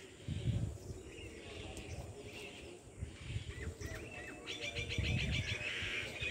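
Birds chirping in the background, with short calls every second or so and a fast trill about three-quarters of the way through, over a low rumble on the microphone.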